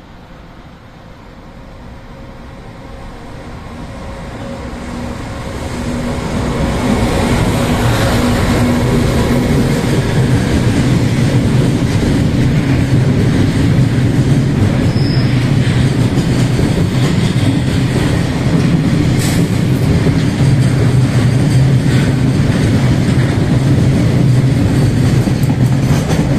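Freight train passing through a station without stopping. It grows louder for the first six or seven seconds as the locomotive approaches, then becomes a loud, steady rumble of container wagons and tank wagons rolling by on the near track.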